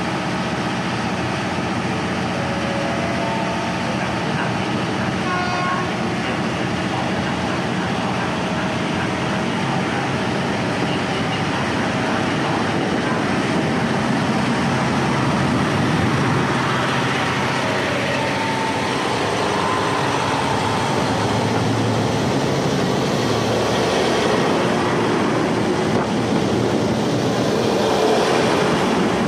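Kiha 183 diesel railcar train running at the platform and then pulling away, its diesel engines and rolling wheels growing fuller and louder from about halfway through as the cars pass close by.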